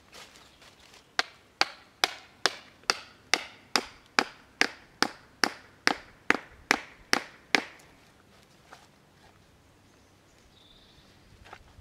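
Hatchet striking wood in a steady run of about sixteen sharp blows, a little over two a second, which then stop.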